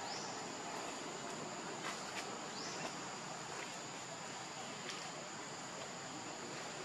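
Steady outdoor ambience: a thin, high insect drone over an even hiss, with a couple of short rising chirps and a few faint clicks.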